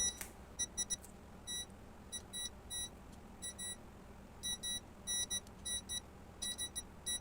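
Digital multimeter's continuity buzzer giving many short, high-pitched beeps in irregular clusters as the probes touch and lift along a homemade PCB copper track; each beep signals an unbroken connection.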